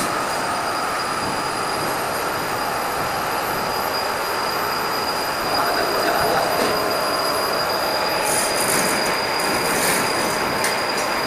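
Hydraulic vacuum compression moulding press running, its pumps giving a steady whine as the chamber is drawn down to vacuum. A thin high whistle rises over the first couple of seconds and then holds, with bursts of hiss from about eight seconds in.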